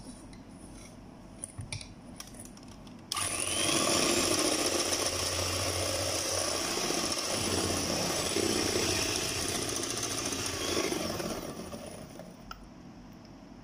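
Electric hand mixer with twin wire beaters switched on about three seconds in, whirring steadily as it beats eggs, sugar and oil in a stainless steel bowl, then dying away a couple of seconds before the end.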